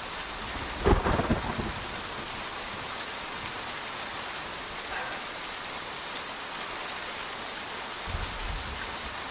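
Steady heavy rain, with a sharp crack of thunder about a second in and a low rumble of thunder near the end.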